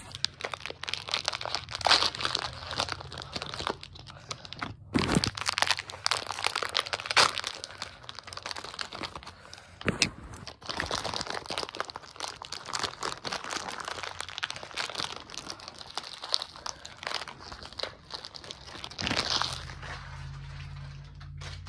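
Foil blind-bag packets crinkling and crackling as they are handled and torn open, in quick irregular bursts. A low steady hum comes in near the end.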